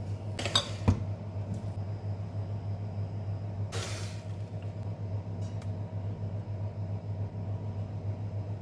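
Kitchenware clinking a few times within the first second, then a brief burst of noise about four seconds in, over a steady low hum.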